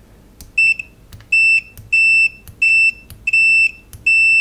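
RS-14 digital multimeter's continuity beeper sounding six times, a steady high beep each time the test probe tips are tapped together, each preceded by the small click of the metal tips touching. The beeper is a little bit on the slow side to respond.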